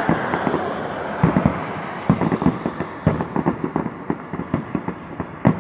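Fireworks going off: many sharp pops and bangs in quick clusters, with a hissing crackle in the first second.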